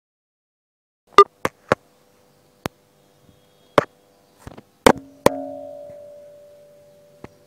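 Metal parts and tools clinking and knocking against the engine while the fuel filter is being loosened: about eight sharp clicks and knocks. The last strong knock, about five seconds in, sets a piece of metal ringing, a clear two-toned ring that dies away over about two seconds.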